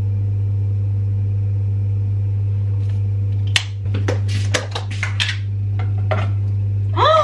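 A steady low electrical hum, with a run of clicks, knocks and clatter of kitchen utensils and packaging by the stove about halfway in. A short exclamation of surprise comes right at the end.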